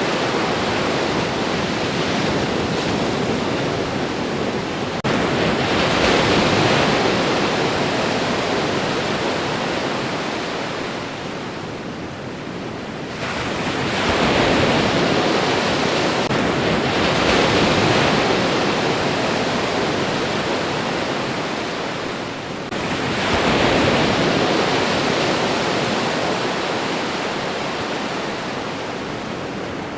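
Ocean waves breaking on a shore: a continuous rush of surf that swells three times, about nine seconds apart, each wave surging in and then fading away.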